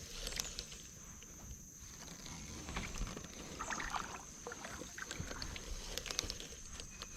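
Quiet sounds of a fishing kayak on the water: light hull and water sounds with scattered small clicks and knocks, over a low rumble and a steady high-pitched whine.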